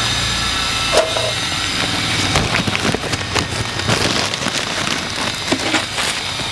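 Newspaper rustling and crinkling in irregular crackles as it is folded and wrapped around a potted plant's root ball, over a steady background hiss. A single knock about a second in.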